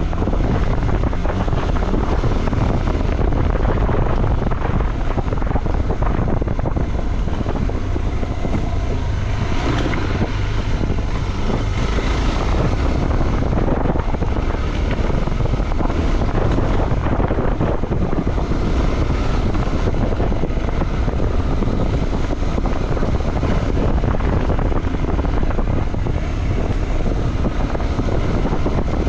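Motorcycle running steadily while being ridden, with wind buffeting the microphone.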